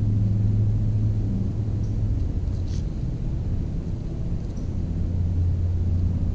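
Steady low engine hum, dipping slightly in pitch a little over two seconds in.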